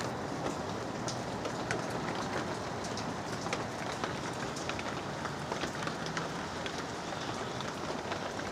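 Steady rainfall, a constant hiss with many separate drops ticking on a hard surface.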